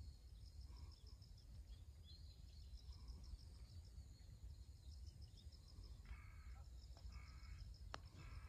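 Near-silent golf green: faint insect chirping pulses steadily, and a bird calls three times near the end. About eight seconds in comes a single sharp click, a putter striking the golf ball on a putt.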